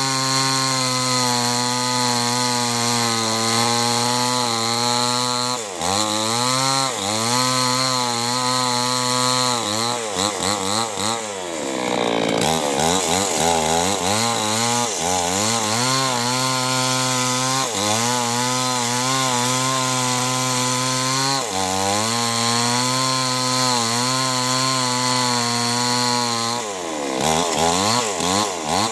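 Two-stroke chainsaw running at high revs while cutting wood. The engine note dips and recovers several times as the chain loads up in the cut: about six seconds in, again at ten to twelve seconds, and once more near the end.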